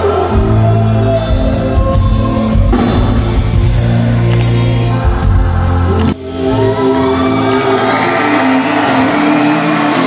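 Band music with a singer and drum kit. The bass drops out suddenly about six seconds in while the singing carries on.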